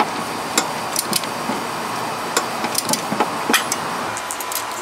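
Irregular metallic clicks and knocks of hands and a tool working among the exhaust header, pipes and O2 sensor wiring in a car's engine bay, over a steady background hiss.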